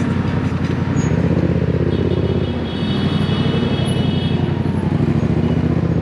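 Yamaha MT-07's parallel-twin engine running at low speed in city traffic, easing off briefly about two and a half seconds in.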